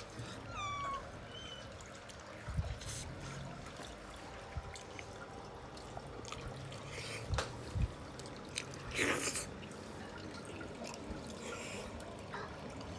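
Close-up eating sounds: wet chewing and mouth noises over boiled lamb and taro, with a few sharp clicks of a metal fork on the plate. A brief high squeak glides down about half a second in.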